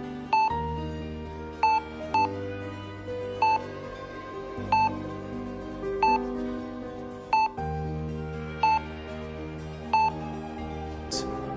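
Background music: slow, sustained synth chords under a short, bright electronic beep that repeats evenly, about three beeps every four seconds.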